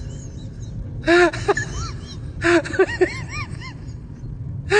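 High whimpering cries, each a quick rise and fall in pitch, coming in two clusters: one about a second in and a longer run from about two and a half to three and a half seconds in.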